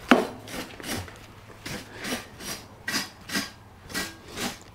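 A broom sweeping dried grass and dirt off the top of a Cub Cadet XT1 42-inch mower deck: a quick run of scratchy brush strokes, about two a second.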